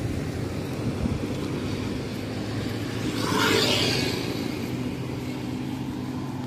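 Steady low engine hum of a vehicle driving along the road. About three seconds in, another vehicle passes with a brief rushing swell of tyre noise.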